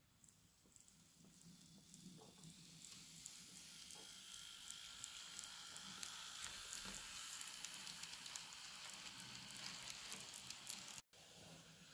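Atlas N scale ALP-45DP model locomotive and multilevel coaches running on sectional track: a faint high motor whine under a fizzing crackle of tiny clicks from the wheels on the rails. The sound grows louder over the first few seconds as the train gets under way and passes close by.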